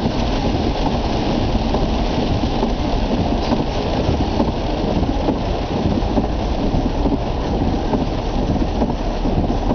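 Steady low rumbling noise inside a car's cabin in the rain, with no single sound standing out.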